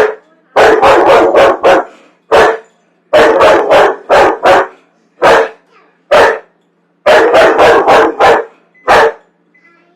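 A dog barking loudly and repeatedly, in quick runs of several barks separated by short pauses.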